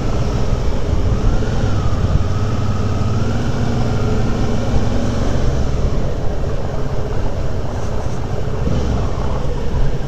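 Motorcycle engine running while riding, its note rising gently over the first few seconds, over a steady loud rushing noise.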